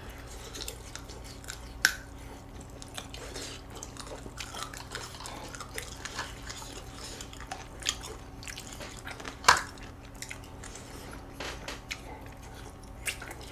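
Two people chewing and biting into braised chicken (jjimdak) and other saucy Korean dishes, including a chicken drumstick. Scattered sharp clicks of chopsticks against plastic and foil containers run through it, the loudest about nine and a half seconds in, over a faint steady hum.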